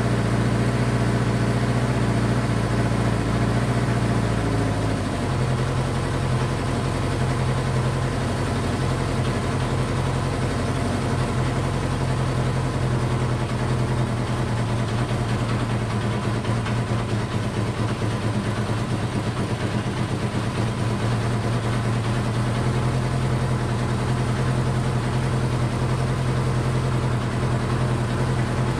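Honda CB500 Four's air-cooled inline-four engine running at a fast idle, freshly started after an oil soak of its cylinders. About five seconds in, the engine speed drops a step and then holds steady.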